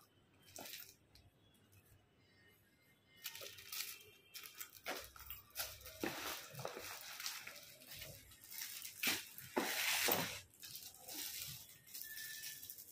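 Plastic-wrapped photo album being handled and slid out of a fabric carry bag: irregular rustling and crinkling of plastic and cloth, starting about three seconds in.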